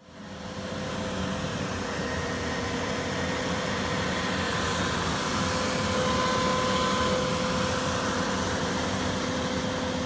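CNC router surfacing an MDF spoilboard with an insert-knife spoilboard surfacing cutter: the spindle runs steadily while the cutter mills the board, a rushing noise with a steady whine over it. It comes in abruptly at the start.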